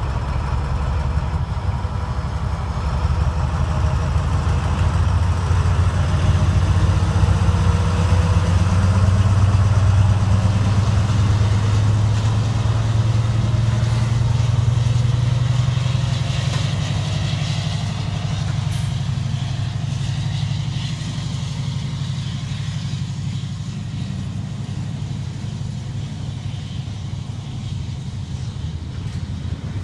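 Freightliner Class 70 diesel locomotive with a GE PowerHaul V16 engine passing close under power, a deep steady engine drone that swells to its loudest about halfway through and then eases as the locomotive goes by. The rumble and rattle of container wagons rolling past follows.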